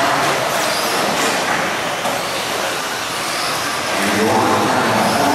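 Electric 2WD short course RC trucks racing on a dirt track: a steady din of motors and tyres, with high motor whines rising and falling as the trucks speed up and slow down.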